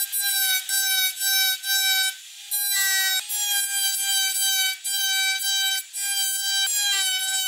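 Flexible-shaft rotary tool running at a steady high whine as its small bit cuts into a carved wooden wheel. The tone breaks off briefly about every half second, with a longer dip about two seconds in.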